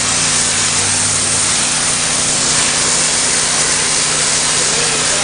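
5000 PSI pressure washer spraying: the high-pressure water jet gives a loud, steady hiss over the even hum of its Honda petrol engine as it strips paint.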